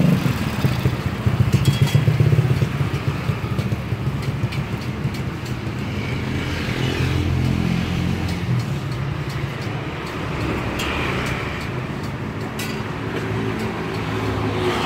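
Street traffic: motorbike and car engines running and passing, a low drone that is loudest in the first couple of seconds and swells again a few times.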